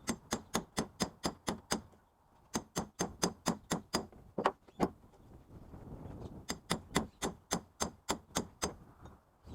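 Rapid hammer blows on metal, about five a second, in three runs with short pauses between them, while a scrap electric motor is torn down for its copper.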